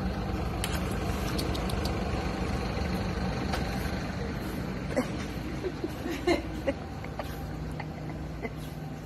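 Steady low hum and hiss of supermarket background noise in a phone recording, with a few brief faint sounds about five and six seconds in.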